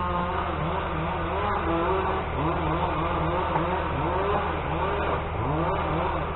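Several chainsaws running in the distance, their pitch rising and falling over and over as they rev through cuts, over a steady low drone.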